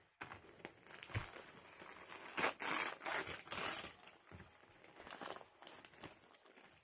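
Plastic courier packaging being cut with a blade and torn open, with crinkling and ripping in bursts that are loudest in the middle.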